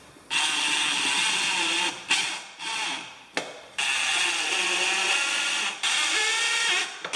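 Power drill driving screws straight into the kayak's plastic without pilot holes, running in several bursts of a second or two that start and stop, with a sharp click a little past the middle.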